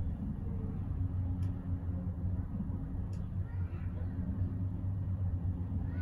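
Steady low hum and rumble inside a moving cable car gondola.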